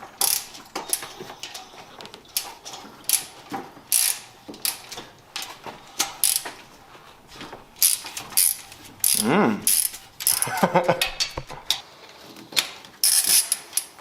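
Socket ratchet wrench clicking in short repeated runs while loosening the exhaust header bolts on a Datsun L28 engine, with a brief squeal about nine seconds in.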